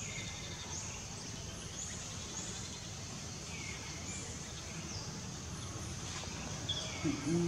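Outdoor wildlife ambience: a steady high-pitched buzz with short chirping calls repeating about once a second, and a brief low pitched call near the end.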